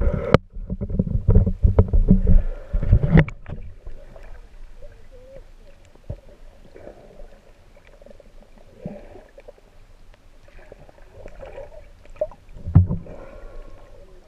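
Water sloshing and splashing loudly against a GoPro's housing at the surface for the first few seconds. After that comes a quieter, muffled underwater stretch with faint murmuring, and another brief splash near the end.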